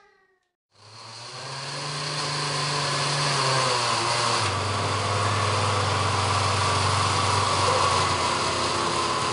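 Oster countertop blender starting up just under a second in and running steadily, chopping banana chunks and blueberries in its glass jar; its motor hum drops to a lower pitch about halfway through.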